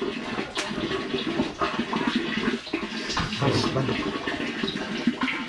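Water running steadily, with faint voices in the background.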